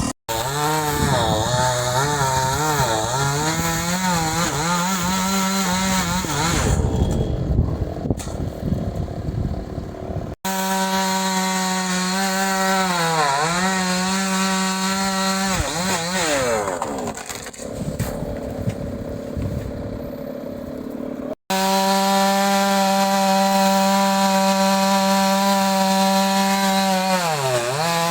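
Chainsaw running at high revs, its pitch dipping and recovering again and again as the chain bites into wood. The sound breaks off abruptly twice and picks up again.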